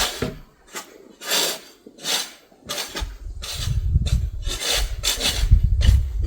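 Snow shovel scraping over pavement in repeated short strokes. From about three seconds in, a low rumble sits under the scrapes.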